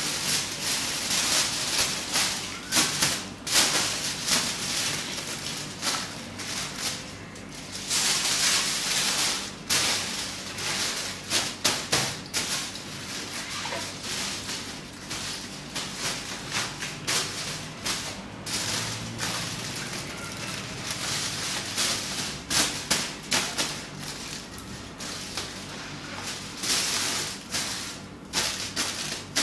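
Aluminium foil crinkling and rustling as it is handled and pressed against the inside of a plastic laundry basket, in an irregular run of crackles with bursts of hiss now and then.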